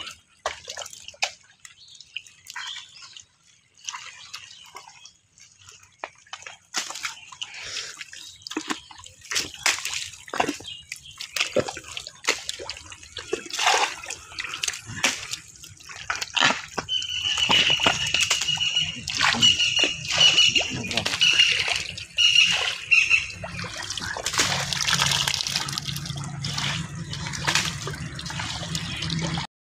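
Muddy water splashing and sloshing as small fish are scooped by hand into a plastic basket, with the fish thrashing in the shallow mud. Irregular wet splashes run throughout and grow busier after the first few seconds. A series of short, high chirps sounds for several seconds past the middle.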